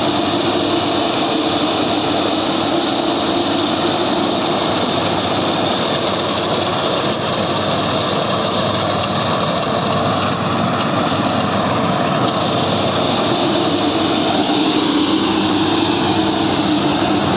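Yanmar YH850 rice combine harvester running steadily while harvesting, its engine and threshing machinery giving one loud, unbroken mechanical drone.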